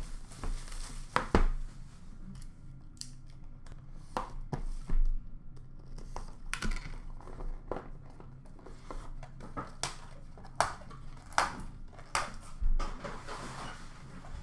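Hands handling and opening a sealed hockey trading-card box: scattered taps, knocks and rustling scrapes of the box and its wrapping, over a faint steady low hum.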